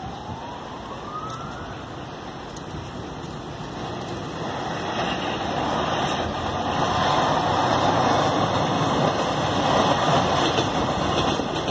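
Metro train running along an open surface track and passing close below: a broad rumble of wheels on rails that swells from about four seconds in and stays loud to the end. At the start a wailing tone glides down and then back up, like a distant siren.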